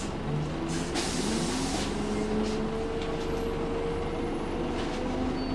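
Scania L94UB bus heard from inside the cabin: a steady engine hum, a short hiss of air about a second in, then a whine that rises slowly in pitch.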